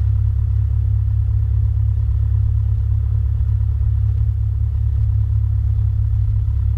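Cessna 172 Skyhawk's piston engine idling, heard inside the cockpit as a steady low drone.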